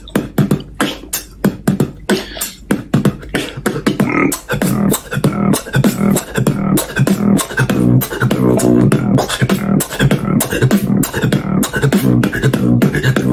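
Solo human beatboxing: a fast, dense run of sharp mouth snares and clicks over a pitched, hummed bass line.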